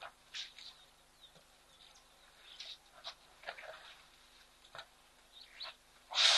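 Elephants drinking at a muddy waterhole: a scatter of brief splashes and slurps as trunks draw up and squirt water, with one louder splash near the end.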